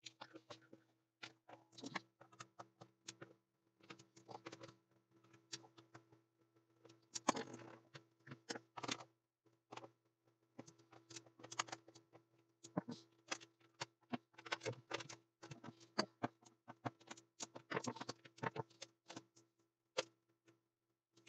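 Scattered small clicks, taps and knocks of a screwdriver and metal and plastic parts as the front panel of an NAD 3240PE amplifier is unscrewed and lifted off, over a faint steady hum.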